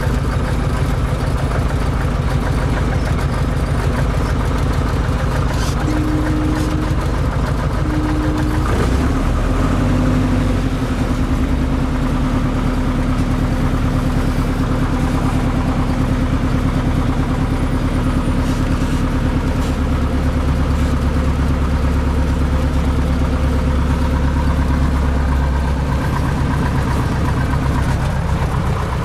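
Piper PA-18 Super Cub's piston engine and propeller running on the ground, heard from inside the cabin. The engine note shifts about nine seconds in and runs heavier for a stretch near the end. Two short steady tones sound just before the change.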